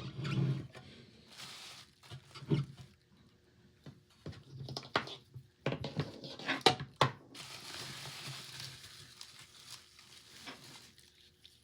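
Packaging being opened and handled while soldering-station parts are lifted out: rustling, with scattered light clicks and knocks. A cluster of sharper knocks comes about midway.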